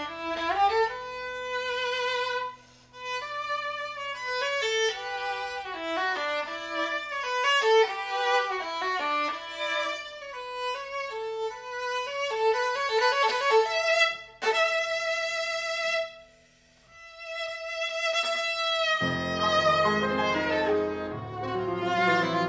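Viola and grand piano playing classical chamber music: the viola's impassioned melodic line with vibrato over held low piano chords. Past the middle the viola holds one long note with the piano falling silent, then the piano comes back in with full low chords near the end.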